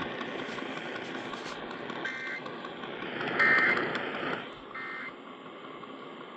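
Emergency Alert System end-of-message data burst: three short squawks of two-pitch digital data tones, a little over a second apart, the middle one loudest. They sound over a steady background hiss.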